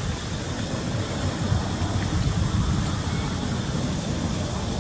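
Steady outdoor background noise: a low, fluctuating rumble under an even hiss.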